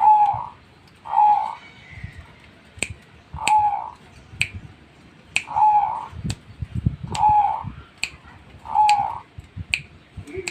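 A bird calling over and over, six short arched notes spaced about one to two seconds apart, with sharp clicks in between.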